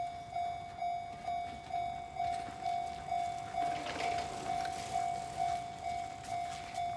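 Japanese railway level-crossing warning bell ringing, a steady electronic ding repeated about twice a second, which signals that a train is approaching and the barriers are coming down.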